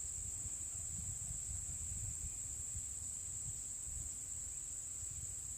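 Insect chorus: a steady, unbroken high-pitched trill over a faint low rumble.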